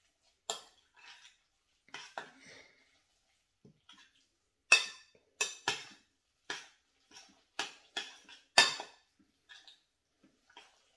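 A metal spoon clinking and scraping against a bowl in irregular strokes while stirring grated boiled potato with milk and olive oil.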